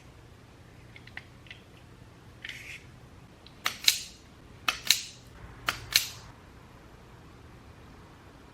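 Hand wire-cutting tool working on a power cord: three sharp double snaps about a second apart, each a light click followed by a louder snap, with a few faint ticks before them.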